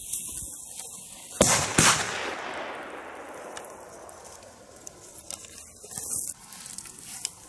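A Nitro firecracker going off with a sharp bang about a second and a half in, followed closely by a second crack. The report echoes and dies away over the next couple of seconds.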